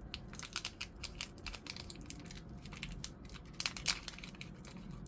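Foil wrapper of a Pokémon booster pack crinkling and crackling as it is handled and opened, with irregular crisp clicks and a louder pair of crackles just before four seconds in.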